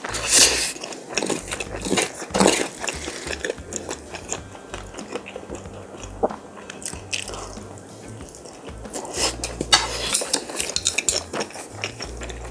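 Wooden spoon scraping and scooping fried rice in a pan several times, loudest at the start, with close-miked chewing of mouthfuls of rice between.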